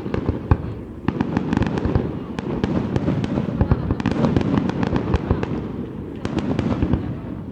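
Fireworks display: rapid clusters of crackling bangs over a continuous low rumble of bursting shells.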